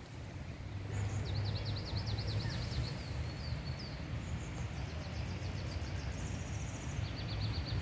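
A songbird singing high, rapid trilled phrases in two bursts, over a steady low background rumble.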